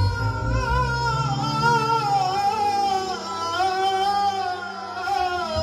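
A male singer sings a long, wavering Arabic wedding-song line through a microphone and PA, over steady held electronic keyboard backing.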